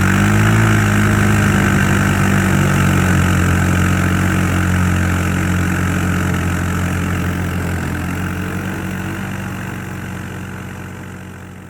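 Small engine of a kids' side-by-side (Polaris RZR 170 clone) revving up at full throttle and then running steadily. It slowly fades over the last few seconds.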